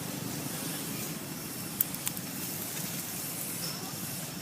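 Steady low background rumble with two short sharp clicks about two seconds in.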